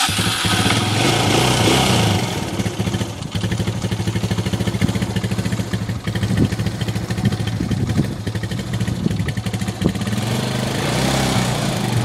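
Small ATV (quad) engine running at idle after being started, with a steady, uneven putter.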